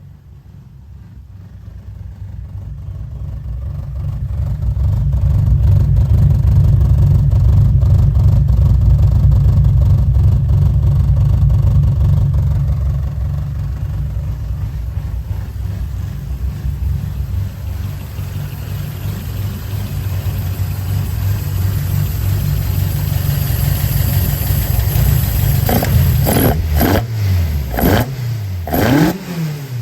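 Toyota AE86 Corolla's 4A-GE four-cylinder on individual throttle bodies running at idle, getting louder over the first several seconds and then holding steady. About 26 seconds in, the throttle is blipped several times in quick succession, the revs rising and falling.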